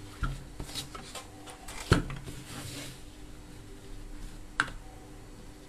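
A few light clicks and knocks of hand tools and wire being handled on a workbench, the sharpest about two seconds in and another near the end, over a faint steady hum.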